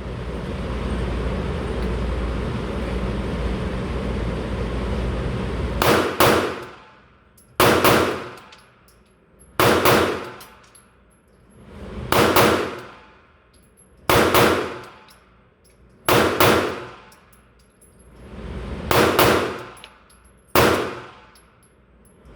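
9mm Glock 45 pistol fired slowly, a string of sharp, ringing shots roughly two seconds apart that begins about six seconds in. Before the shots there is a steady rumbling noise.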